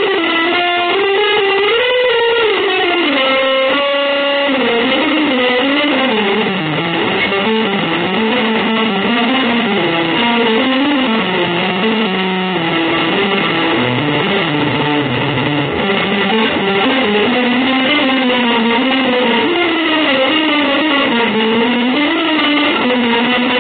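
Improvised electric guitar music: a single continuous melodic line that winds up and down in pitch without a break.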